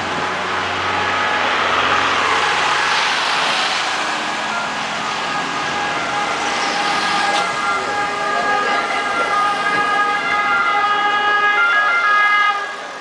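An emergency vehicle's siren sounding in steady tones that cut off about twelve and a half seconds in, over the rush of cars passing close by.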